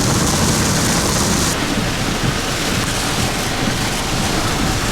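Heavy rain and strong wind beating on a moving storm-chase vehicle, a loud, steady rush of noise: the rear-flank downdraft winds of a tornadic supercell. The high hiss eases slightly about a second and a half in.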